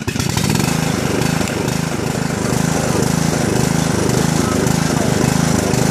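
Red riding lawn mower's engine running steadily after a fresh start, with the throttle pushed forward; it steps up in loudness right at the start and then holds an even, fast pulsing note.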